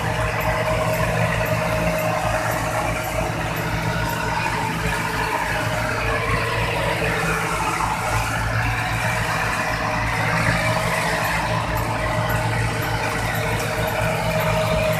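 Fishing boat's engine running steadily, a low, evenly pulsing hum that does not change speed.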